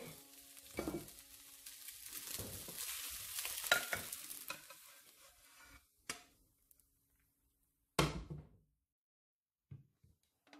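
Spatula stirring and scooping fried rice in a non-stick wok, with a faint sizzle, as the rice is dished out. It fades away about six seconds in, then two short knocks follow over near silence.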